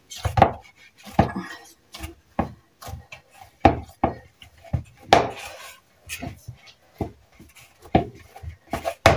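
Lahmacun dough being kneaded by hand in a plastic bowl: irregular dull thumps and knocks, about one or two a second, as the fists press into the dough and the bowl shifts.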